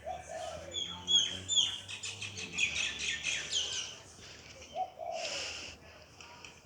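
Small birds chirping and twittering, a busy run of quick rising and falling calls that thins out after about four seconds. A short rush of noise comes about five seconds in.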